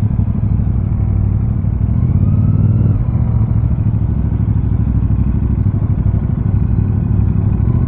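CFMOTO 450 CL-C's parallel-twin engine running under way, rising in pitch as it accelerates about two to three seconds in, then pulling steadily.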